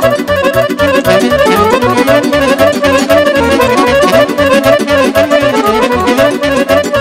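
Live band playing fast Romanian folk dance music, an instrumental passage between sung verses: a quick melody line over a steady bass beat of about four pulses a second.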